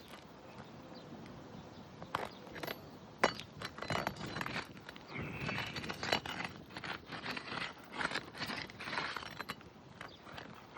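Footsteps and gritty scuffing on an asphalt shingle roof, with scattered sharp clicks and scrapes, busier from about three seconds in.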